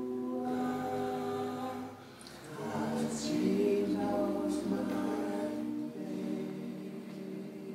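Small group of adults singing a cappella in harmony: held notes, a brief dip about two seconds in, a few more sung words, then a long held chord that slowly fades near the end.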